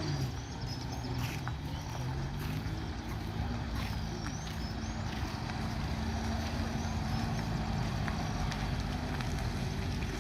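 Engine of a restored classic truck running steadily on a road test, an even low drone with no revving.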